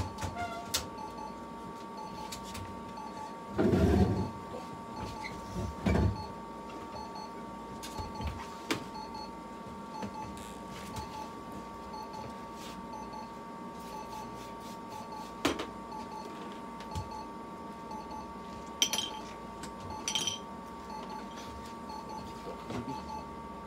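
Steady high electronic tone from a veterinary therapy laser unit while its red-light probe is held over the cat's head. A couple of dull bumps about four and six seconds in, and brief clinks near the end.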